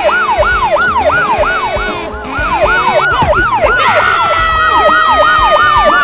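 Police siren sound effect, a fast up-and-down yelp repeating about three times a second. About four seconds in, a second steady tone joins it and slowly falls in pitch.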